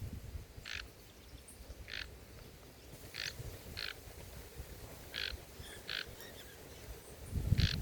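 A bird at a feeder giving short, sharp call notes, seven in all, spaced about a second apart. A few low thumps come near the end.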